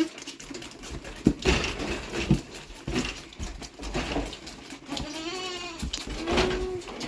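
Goats bleating: two drawn-out bleats in the second half, among scattered knocks and rustling.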